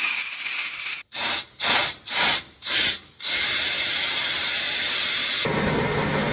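A Snap-on air impact wrench running on water from a garden hose instead of compressed air, triggered in four short bursts with water spraying from its exhaust. A steady spraying hiss follows and turns deeper near the end.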